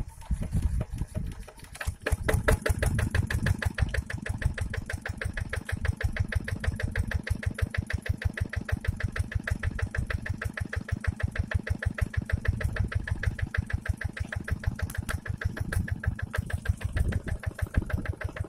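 Single-cylinder diesel engine of a two-wheel hand tractor, just started: it runs unevenly for about two seconds, then settles into a steady, rapid run.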